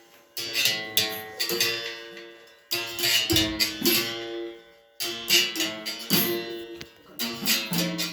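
Capoeira berimbau played in a repeating toque: quick clusters of struck notes, each phrase ending in a held ringing note, switching between two pitches (open and pressed string).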